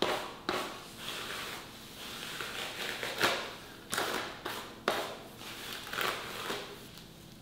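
A paddle brush drawn again and again through a long, thick curly wig, each stroke a rasping swish that fades out, about one or two a second.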